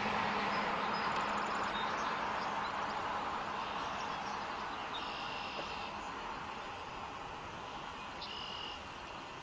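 Outdoor background noise: a broad rushing sound that slowly fades away, with faint high chirps about halfway through and again near the end.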